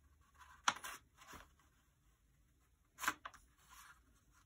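A sheet of A4 paper crackling and rustling as it is folded and creased by hand: a few short crisp sounds, the sharpest just under a second in and another about three seconds in.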